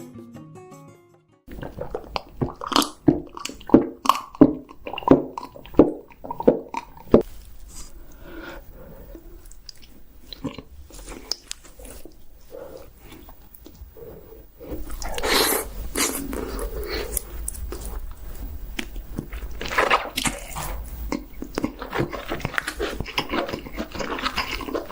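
Close-miked biting, crunching and chewing of chicken, with a run of sharp crunches a few seconds in and steadier, denser chewing in the second half.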